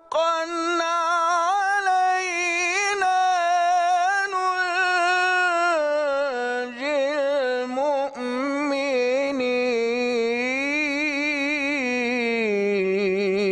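A man's unaccompanied voice reciting Quran in the melodic, drawn-out contest style, held as one long ornamented phrase without a break. The pitch wavers through turns and vibrato and sinks lower toward the end.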